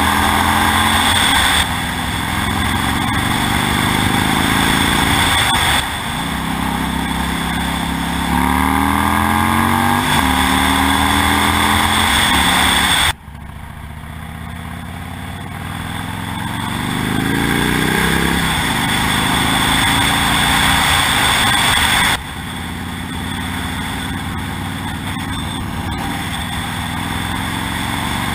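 2008 Harley-Davidson Nightster 1200's air-cooled V-twin running through a Vance & Hines Blackout 2-into-1 exhaust while riding. The revs climb and drop off sharply several times, with the deepest drop about 13 seconds in and a slow pull back up after it. Wind buffets the microphone throughout.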